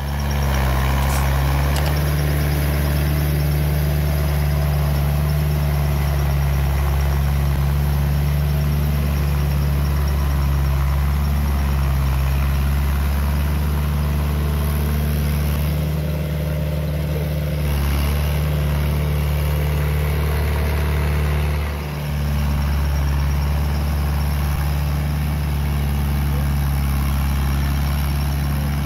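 New Holland TD80 tractor's diesel engine running steadily as the tractor works a muddy rice paddy with its rear implement, with a brief dip in the engine note about three-quarters of the way through.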